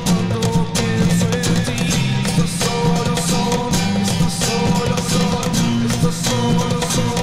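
Layered live-looped music from a BOSS loop station: guitar parts repeating over a steady percussive beat.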